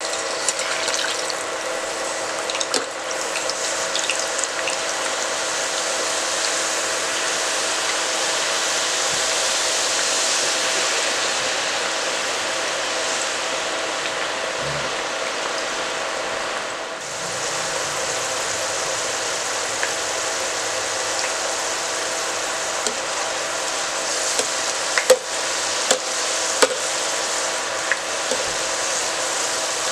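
Thin potato slices deep-frying in hot oil in a stainless steel pot: a steady, loud sizzle of vigorously bubbling oil. A few sharp clicks near the end as the wire skimmer knocks against the pot.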